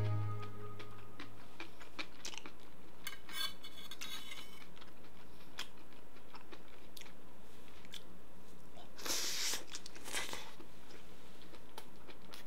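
Light clicks and small rustles of chopsticks handling boiled pork and seasoned radish kimchi on a slate plate, then two short crunches about nine and ten seconds in.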